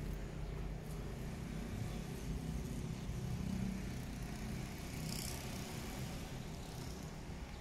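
Steady low background rumble with a brief hiss about five seconds in.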